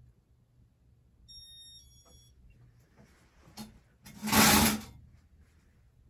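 Casablanca Four Seasons ceiling fan running in demo mode: its motor hums faintly while its built-in beeper gives two short, quiet, high beeps about a second and two seconds in. About four seconds in, a loud scraping rustle close to the microphone lasts about a second.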